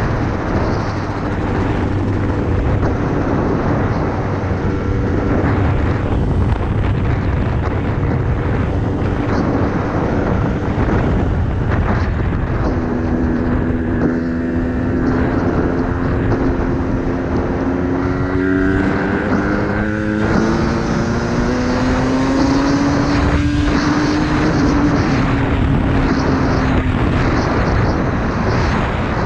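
Yamaha YZ250 two-stroke dirt bike engine running under way over a steady rush of noise. Its pitch rises and falls with the throttle and climbs in long pulls through the second half.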